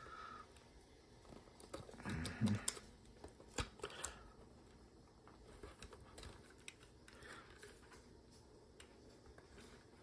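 Faint handling sounds from an aluminium wireless keyboard: a few sharp clicks and taps as its battery tube and parts are turned and fitted by hand, the loudest near the middle, with a brief murmur of voice about two seconds in.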